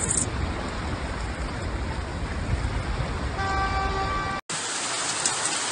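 Rain and floodwater on a flooded street, a steady rushing noise with a low rumble, as cars drive through the water. A little past halfway a car horn honks once, for about a second. Near the end the sound cuts out for an instant and gives way to a brighter hiss of heavy rain.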